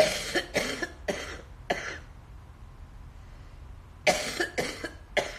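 A woman coughing into her hand after choking on something: four coughs in quick succession, a pause of about two seconds, then three more.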